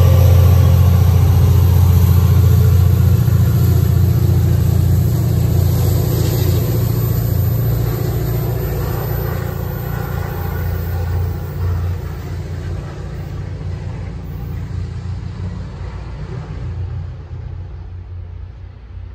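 MBTA commuter train pulling out, its diesel locomotive running with a low, steady drone that fades as the train moves away.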